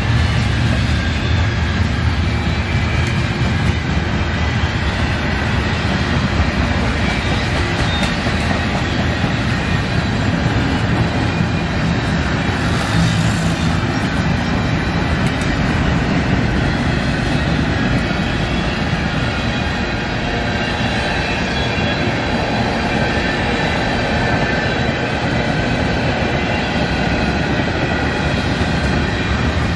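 Freight cars of a manifest freight train rolling steadily past at close range: steel wheels running on the rails make a loud, even noise, with faint high-pitched wheel squeal at times.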